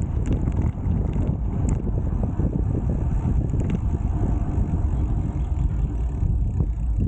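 Wind rushing over the microphone of a camera on a road bike being ridden: a steady low rumbling noise.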